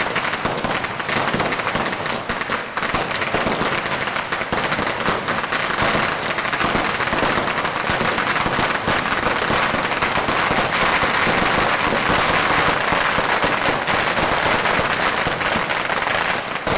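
A long chain of firecrackers going off: a dense, unbroken rapid-fire crackle of bangs that runs on without pause.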